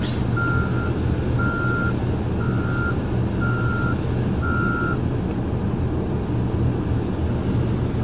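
A bulldozer's reverse alarm beeps about once a second, five times, then stops about five seconds in. Under it the machine's diesel engine runs steadily. The machine is in reverse, backing up to try to get out of the snow it is stuck in.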